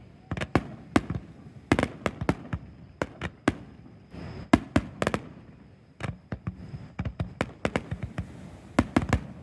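Fireworks bursting in quick irregular succession: many sharp bangs, often in clusters of two to four.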